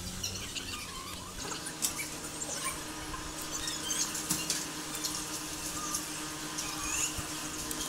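Nylon rope being handled and pulled tight around a submersible pump's head as a knot is tied: light scratchy rustles and small clicks, over a faint steady hum.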